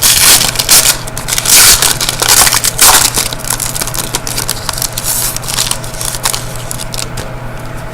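Trading-card pack wrapper being torn open and crumpled by hand: irregular crinkling and crackling, loudest in the first few seconds and fading away after about six seconds.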